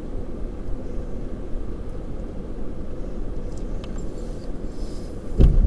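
Vehicle rolling slowly over a dirt lot, a steady low rumble with a faint hum. Near the end, a sudden loud thud and rough low dragging noise as the hitch head drags on the ground.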